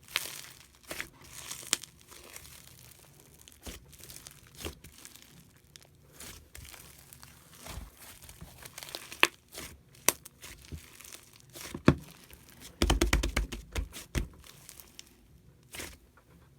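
White slime being squeezed, stretched and pressed by hand, giving scattered sticky clicks and pops, with a denser run of crackling and soft thuds about thirteen seconds in.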